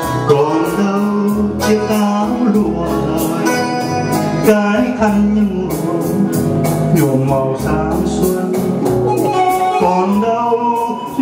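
A song with singing over an instrumental backing and a steady bass line.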